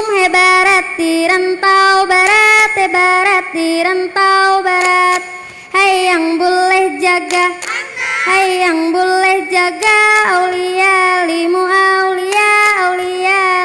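A group of girls singing in unison, the chanted song that carries a Saman dance, in held, bending notes broken by short pauses, with a few sharp hand claps.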